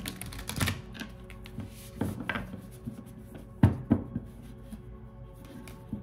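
Tarot deck being shuffled and handled, giving several sharp, irregular taps and knocks, over background music with steady held tones.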